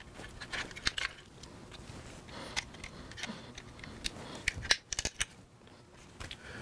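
Light, irregular clicks and scrapes of small sharp-pointed retaining clips being pried off a plastic motorcycle console's speaker-grille mounts with a small flat screwdriver, with a quick cluster of clicks about five seconds in.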